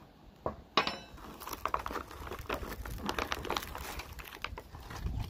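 The plastic of a Humanitarian Daily Ration bag ripping as it is cut open with a knife a little under a second in, then steady crinkling and rustling of the bag and the foil food pouches being pulled out of it.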